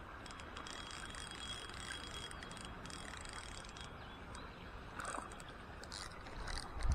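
Fishing reel being cranked steadily to reel in a hooked fish, a fairly quiet, continuous mechanical whir, with a short louder sound about five seconds in.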